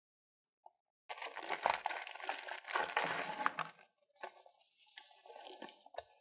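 A clear plastic packaging bag crinkling as it is handled and opened, with the paper instruction leaflet pulled out and unfolded. It starts about a second in and is loudest for the next few seconds, then drops to softer paper rustling with a couple of sharp crackles.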